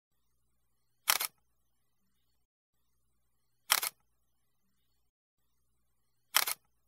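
Camera shutter click sound effect, three times at an even spacing of about two and a half seconds, each a quick double snap, with near silence between them.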